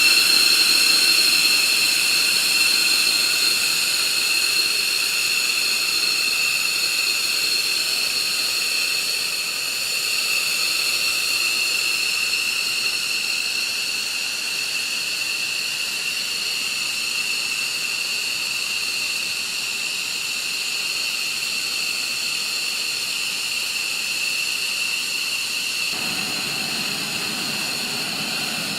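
Fighter jet engines running on the ground with a steady high-pitched whine over a hiss, typical of jets idling or taxiing on a flight line. Near the end a lower rumble joins in.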